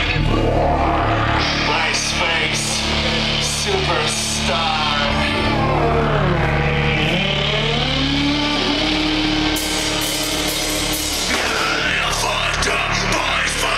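Rock band playing live: electric guitar and bass holding and sliding notes over drums, with the drums and cymbals coming in hard about ten seconds in.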